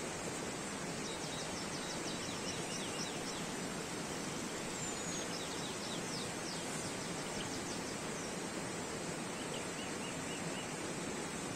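Steady rush of a mountain stream, with a small songbird calling over it in three runs of quick, high chirps.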